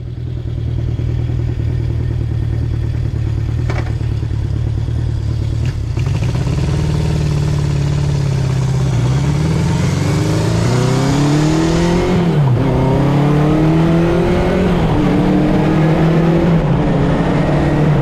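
Honda CB750 Four's air-cooled inline-four engine running through its exhaust, idling steadily, then revved several times from about six seconds in, the pitch climbing and falling with each blip.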